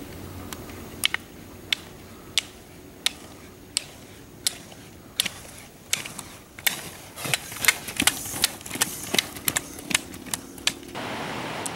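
Roller ski poles' metal tips striking asphalt: sharp clicks about every two-thirds of a second, then faster and more irregular clicks in the second half. Near the end the clicks give way to a steady rushing noise.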